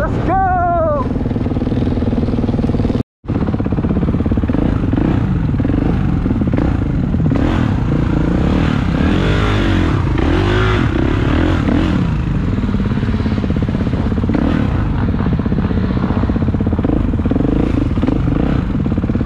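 Dirt bike engine running under way, its pitch rising and falling repeatedly as the rider works the throttle on a rough dirt trail. The sound cuts out for a moment about three seconds in.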